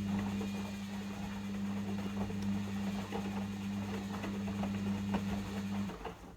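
Logik L712WM23 washing machine running with a steady low hum and scattered clicks and rattles; the hum cuts off about six seconds in.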